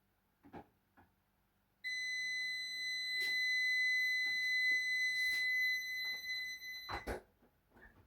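A steady, high electronic beep tone held for about five seconds, ending with a knock, after a couple of soft knocks at the start.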